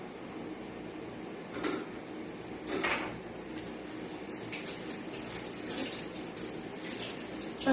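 Kitchenware clinking and knocking: two louder clatters about two and three seconds in, then a few lighter clinks, over a steady background hiss.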